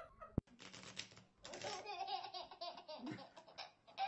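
A baby laughing in short choppy bursts, with an adult man laughing along.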